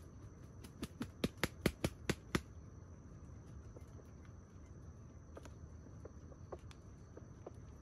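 Insects singing with a steady, thin high trill. About a second in comes a quick run of about nine sharp clicks, roughly six a second, and a few fainter single clicks follow later.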